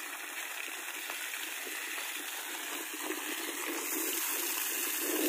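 Water gushing steadily from a newly installed submersible borewell pump's discharge, growing slightly louder a little under four seconds in.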